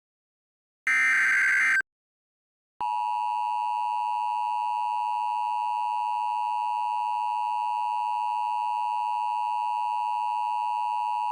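Emergency Alert System tones. About a second in comes a one-second burst of the SAME header's digital data tones, closing the header. After a short gap, near three seconds in, the steady two-tone EAS attention signal starts and holds without change.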